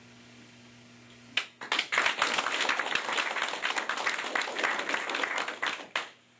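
Small audience applauding. A first clap comes about a second and a half in, then dense clapping runs for about four and a half seconds and cuts off suddenly.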